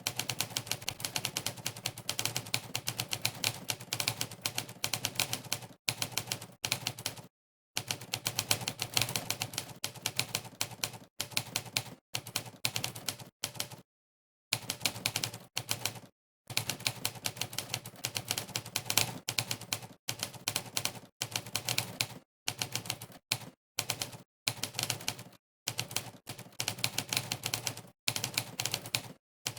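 Typewriter keystroke sound effects, one per key press, clattering in fast runs of many strokes a second. The runs stop dead for short moments of complete silence several times as typing pauses.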